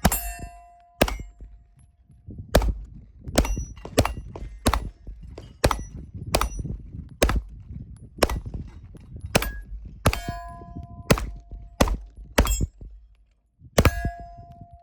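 A string of about sixteen pistol shots at steel plate targets, roughly one every half second to a second. Hits on the steel ring out with a clear clang, most strongly three times: at the start, about ten seconds in and near the end.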